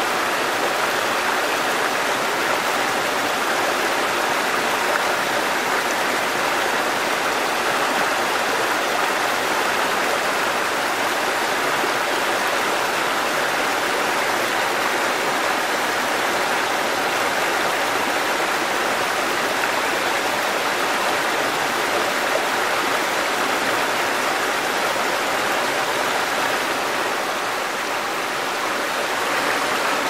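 Shallow rocky stream running and splashing over small cascades between boulders: a steady rush of water.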